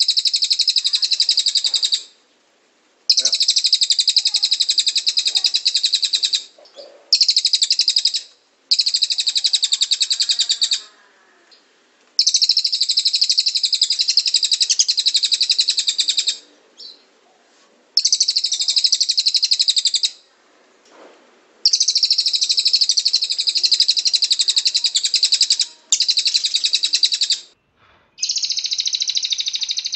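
Cililin singing loud, rapid rattling trills ('tembakan') in bouts of one to three seconds, separated by short pauses.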